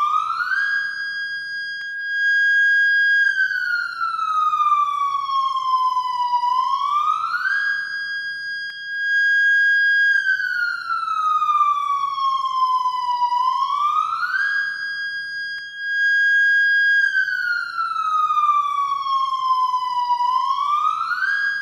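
Japanese police motorcycle's new-type electronic siren wailing. Each cycle rises quickly, holds the high note for about two and a half seconds, then falls slowly back down, repeating roughly every seven seconds.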